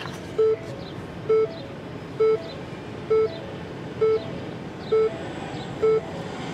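Car's dashboard warning chime repeating at an even pace, a short beep just under once a second, seven times, over a low steady hum.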